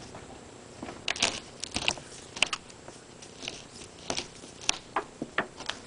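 Windshield molding weather stripping being pulled off the edge of the glass: irregular crackling and sharp clicks as the strip peels away.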